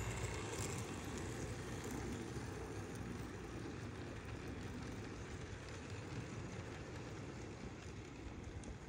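Mantua/Tyco Union Pacific GP-20 eight-wheel-drive HO model locomotive running on its track with a string of cars, a steady low whirring rumble of its motor, gears and wheels.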